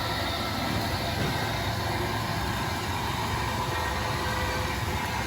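A PD1C corn grits milling machine running steadily: a continuous low motor hum under an even mechanical rush of noise.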